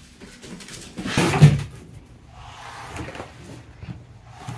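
A single dull thump about a second in, the loudest sound, with quieter scuffling and knocking around it.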